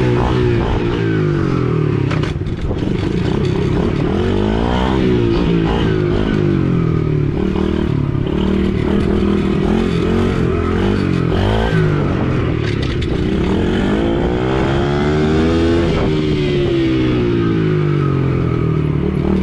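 Small gas dirt bike engine running as it is ridden, its pitch climbing and dropping several times as the throttle is opened and eased off.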